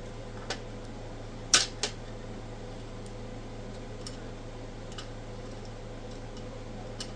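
A few sharp clicks and light taps of small hard parts being handled on a workbench. The two loudest come about a second and a half in, a quarter second apart, with fainter ticks scattered through, over a steady background hum.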